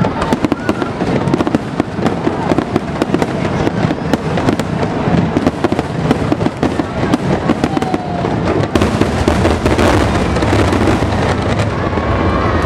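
Fireworks display in a dense barrage of rapid crackling and popping bangs, many a second. About nine seconds in, the separate bangs give way to a steadier rushing noise.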